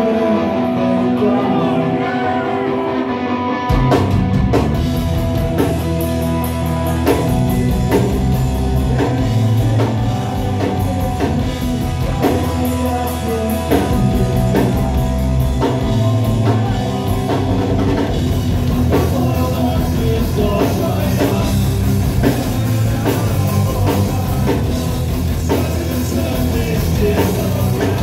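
Live rock band playing loud: electric guitar alone at first, then the drum kit and bass come in together about four seconds in and the full band drives on with a steady beat.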